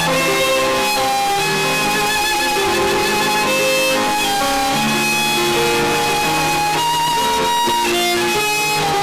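Violin and digital keyboard playing together: the bowed violin holds long notes with vibrato over keyboard chords.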